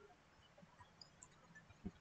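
Near silence: faint room tone, with one short faint click near the end.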